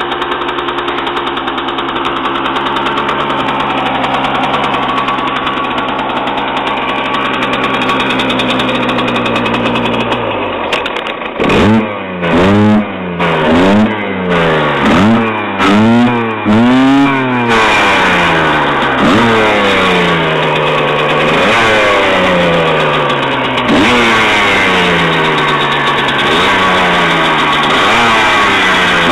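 A 2009 Husqvarna WRE 125's single-cylinder two-stroke engine idles steadily. About eleven seconds in it is blipped hard about seven times in quick succession, each rev rising and dropping back. After that come slower rises and falls in engine speed.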